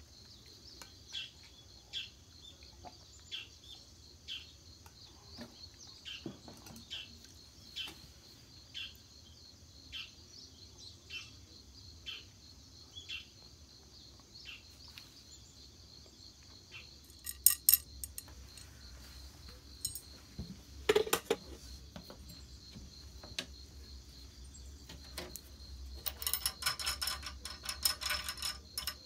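Short faint chirps repeating about once a second over a steady hiss, then metal tableware clinking sharply a few times, and a run of rattling clicks near the end as a wooden folding table is taken apart.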